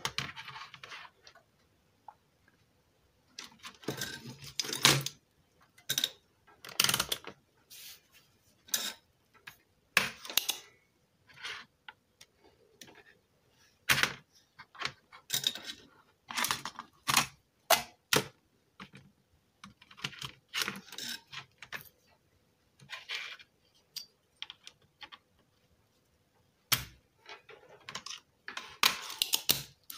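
Irregular clicks, taps and knocks of small parts and tools being handled on a workbench: the stereo faceplate's circuit board and a spring-loaded desoldering pump being picked up and set down. These are the sounds of getting ready to desolder the faulty volume control.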